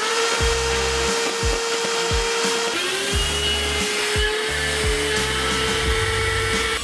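Cordless stick vacuum's motor running with a steady whine. The pitch climbs as it starts, then dips and spins back up about three seconds in, over background rock music with a steady beat.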